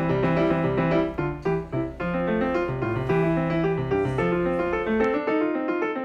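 Background piano music: a lively keyboard piece of quick, running notes.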